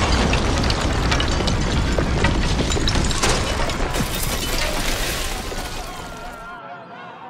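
Simulated earthquake shaking: a deep rumble mixed with the clatter and crash of falling bricks and debris. It fades out about six seconds in, leaving faint bird calls.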